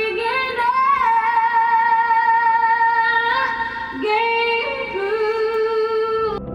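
A high voice singing a few long, held notes with slight vibrato and short slides between them, cutting off suddenly near the end.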